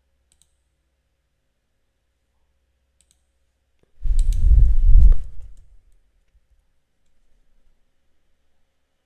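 Two faint computer mouse clicks, then about four seconds in a loud, low, muffled rumble on the microphone lasting about a second and a half.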